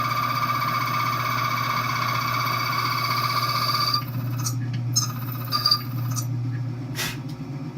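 Keyway-cutting machine with a small slotting wheel milling a slot into a brass high-security key blank: a steady high whine over the motor's hum. The whine stops suddenly about four seconds in, and the motor keeps running under a few light clicks and clatters as the blank is handled, with one sharp click near the end.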